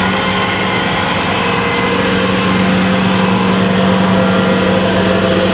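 Kubota DC70 combine harvester's diesel engine running steadily, a constant drone with a steady hum.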